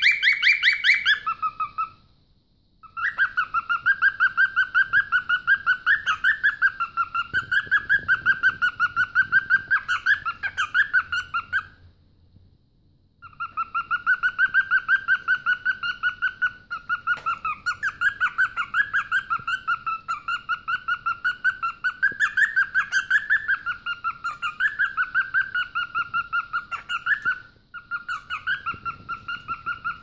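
Cockatiel chirping in long runs of quick, evenly repeated notes at a slightly wavering pitch. The runs pause briefly about two seconds in, about twelve seconds in, and again near the end.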